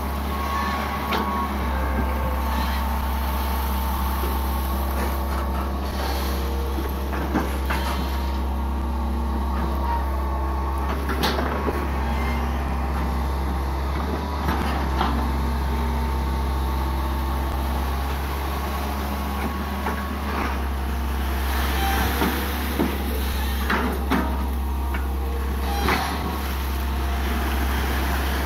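Hitachi EX120 long-arm excavator's diesel engine running steadily as the machine digs, with scattered knocks and clanks from the arm and bucket working in the ditch.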